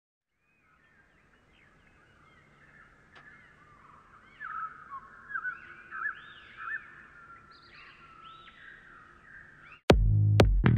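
Songbirds chirping and twittering, many quick rising-and-falling calls that fade in over the first few seconds. Near the end, loud electronic dance music with a heavy drum-machine beat cuts in abruptly.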